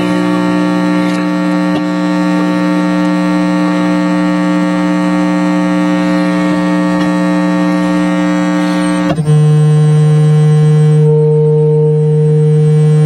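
Steady electronic buzzing drone of several held tones from a toggle-switch tone-generator box, the signal traced on the oscilloscope. About nine seconds in it switches abruptly to a different chord and gets slightly louder.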